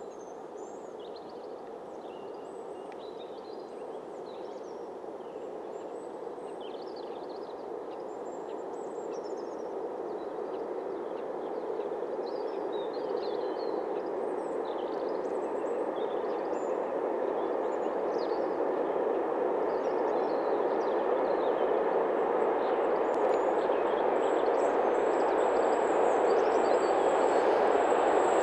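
Freight train hauled by a Dr16 diesel locomotive approaching, its engine and wheel noise growing steadily louder, with small birds chirping over it. Near the end a high steady whine joins in.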